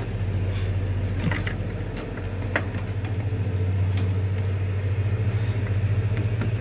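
Plastic tail light bulb socket being twisted in its housing, giving a few light clicks, over a steady low hum.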